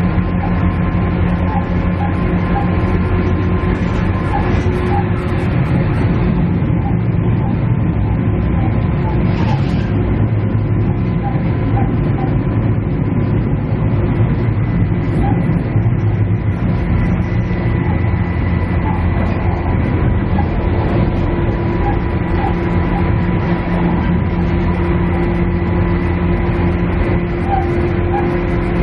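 Cabin sound of a KiHa E130 diesel railcar under way: a steady diesel engine drone over the rumble of the wheels on the track, with a few faint steady whining tones above it.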